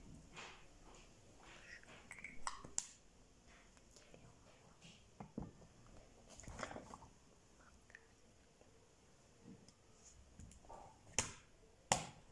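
Makeup items being handled: scattered small clicks and taps of lipstick and cosmetic tubes, the two sharpest near the end.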